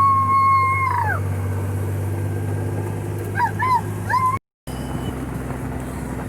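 Kawasaki Mule Pro FXT side-by-side's three-cylinder engine running steadily under a long held howl that slides down in pitch and stops about a second in. A few short yipping calls follow a couple of seconds later.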